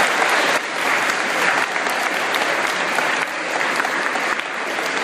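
Audience applauding, a loud, steady clapping that continues throughout.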